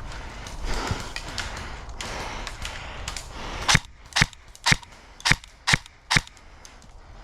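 BOLT MP5K airsoft electric gun (AEG) firing six single shots, each a sharp crack about half a second apart, after a few seconds of rustling movement.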